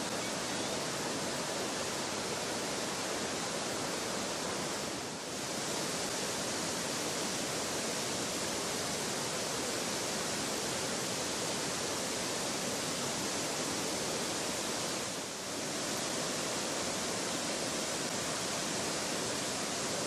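Curug Gumawang waterfall and the Gumawang river in spate, the water pouring over the fall and churning over boulders in a steady rush. The rush dips briefly twice.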